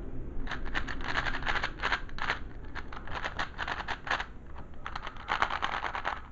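A YJ Yusu R 4x4 speed cube being turned fast by hand: quick runs of plastic clicking and clacking as the layers snap around, in four or five bursts of about a second each with short pauses between.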